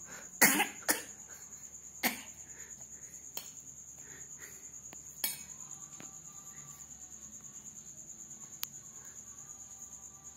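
A person coughing hard after scream-singing practice: two coughs close together at the start, another about two seconds in, then a lighter cough a little past five seconds. A steady high-pitched whine runs underneath.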